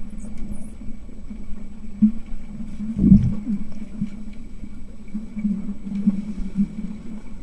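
Muffled underwater sound in a swimming pool: a low steady hum with bubbling and scattered dull knocks, and one louder thump about three seconds in.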